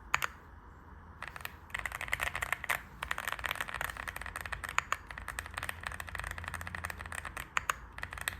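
Fast typing on a mechanical keyboard with Akko Creamy Purple tactile switches under frosted transparent keycaps: a quick, uneven run of key clicks that starts about a second in. The switches' stiff springs make each press loud and creamy, like bubble wrap popping but stronger.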